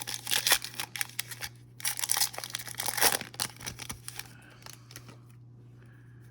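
Plastic trading-card pack wrapper crinkling and tearing as it is handled and opened, busiest in the first three seconds, then only faint handling over a steady low electrical hum.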